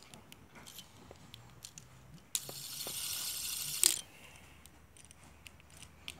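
Light clicks and ticks of a plastic LED fidget spinner being handled in the fingers, with a stretch of hiss a little over two seconds in that ends on a sharper click.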